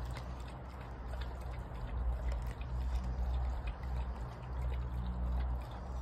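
German shepherd lapping water from a plastic paddling pool: steady wet splashing and trickling, with many small irregular clicks.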